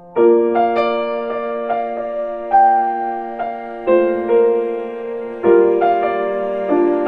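Slow, gentle piano music: a melody of single notes over chords, with a new chord struck about every second and a half.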